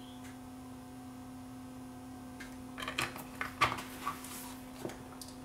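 Plastic clicks and knocks from handling a power-supply brick's case as it is fitted back together, starting about halfway through, over a faint steady hum.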